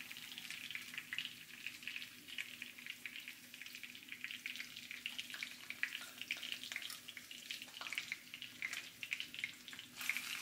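Butter sauce sizzling in a cast-iron skillet, a steady run of small crackles as the salmon finishes pan-searing.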